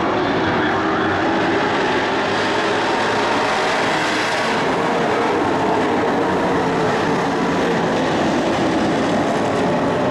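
Engines of several dirt-track racing trucks running around the oval, a loud, steady mass of engine noise.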